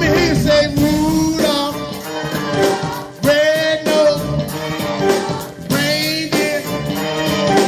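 Live band music: a man singing into a microphone in long, bending notes, with electric keyboard accompaniment, amplified through a PA.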